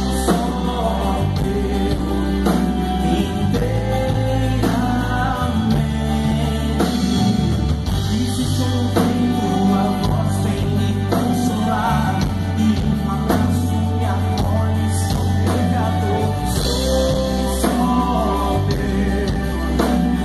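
Live Christian praise (louvor) song: a singer over a band with drums and a steady bass line.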